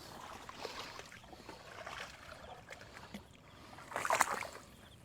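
Shallow muddy water being stirred by hands and feet wading and feeling for eel holes: soft sloshing, with a brief louder splash about four seconds in.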